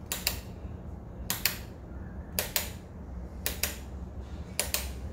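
Sharp clicks in pairs, repeating about once a second, over a steady low hum.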